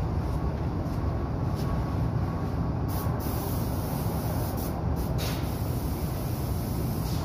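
Paint spray gun hissing as it sprays, starting about three seconds in, with a couple of brief breaks, over a steady low rumble.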